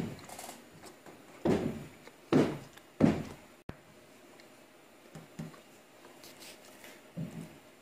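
Dull knocks on a car's sheet-metal body panel as a dent is worked out with paintless dent repair tools: three strong knocks within the first three seconds, then a few fainter ones.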